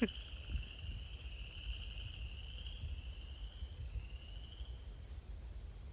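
Chorus of chorus frogs calling, fading out about five seconds in, over a low steady rumble.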